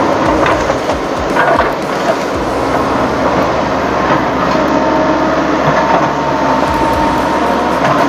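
Radio-controlled toy crawler bulldozer running: its electric gear motors whine steadily while the plastic tracks clatter and the blade scrapes through gravelly soil.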